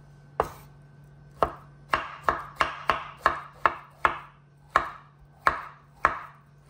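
Kitchen knife dicing a ripe avocado on a wooden cutting board: about a dozen sharp knocks of the blade hitting the board. They come slowly at first, about three a second in the middle, then slower again near the end.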